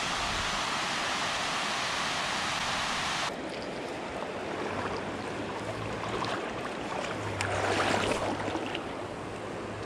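Steady rush of wind and water, cutting abruptly about three seconds in to water splashing and lapping over a low steady hum, with a louder surge of water near the end.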